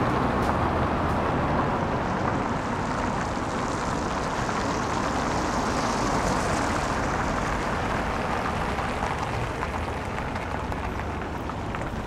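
Road traffic on a multi-lane city road: a steady wash of tyre and engine noise from passing cars, swelling louder around the middle as a nearer vehicle goes by.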